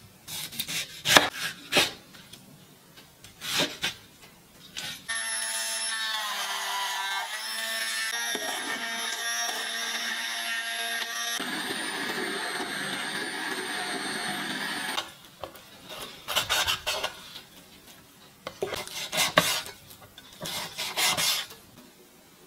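Knife slicing tomatoes on a wooden cutting board, a few sharp strokes. Then an electric hand blender runs steadily for about ten seconds, pureeing the tomatoes in a glass bowl, followed by more scattered short knocks.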